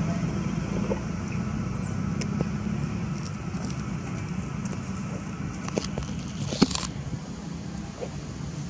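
Steady low hum of a motor vehicle's engine running, with scattered small clicks and a sharp click about six and a half seconds in.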